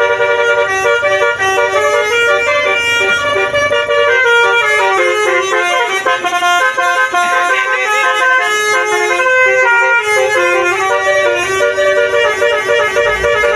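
Basuri 'telolet' multi-tone musical air horn playing a tune: several horn tones sound together and step from note to note in quick succession, with a few short pitch bends midway.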